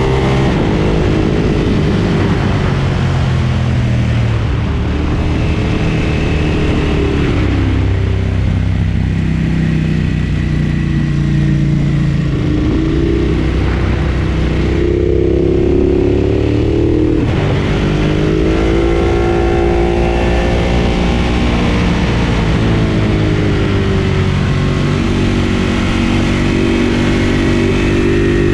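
Ducati Monster 1200 S V-twin engine under way, its revs repeatedly climbing and then dropping back as the bike accelerates and rolls off, with one sharp drop in revs after a long climb.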